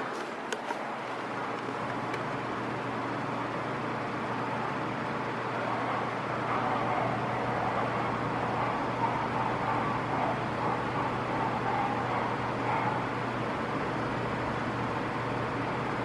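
Arno X-Treme 9 (VE90) 40 cm nine-blade fan running at a low speed: a steady airy whoosh with a low motor hum underneath. Street traffic noise in the background swells a little from about six seconds in.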